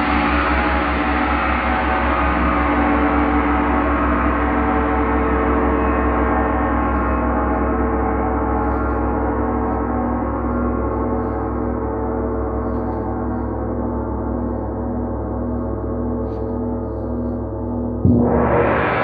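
Large Paiste gong ringing out after a soft-mallet strike: a dense wash of sustained tones with a throb in the low end, the high shimmer slowly dying away. About 18 s in it is struck again and swells back up.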